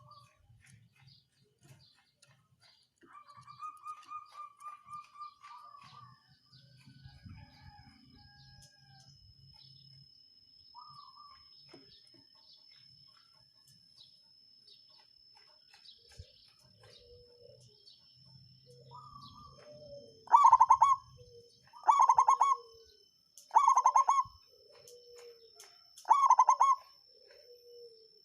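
Zebra dove (perkutut) cooing. A quieter trilled coo comes a few seconds in; from about twenty seconds in there is a run of five loud rolling coos, about one every second and a half, each led by a softer lower note. A faint steady high whine sounds under most of it.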